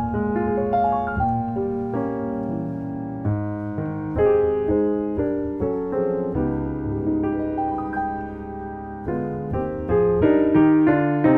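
Grand piano playing jazz, with chords under a melody line at an easy tempo.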